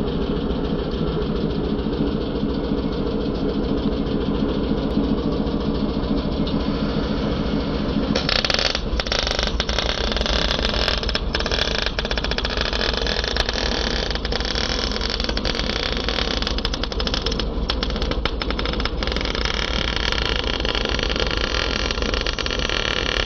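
An engine runs steadily for about eight seconds. Then a stick-welding arc strikes on steel box tube and crackles and sizzles steadily with sharp pops, while the engine keeps running underneath.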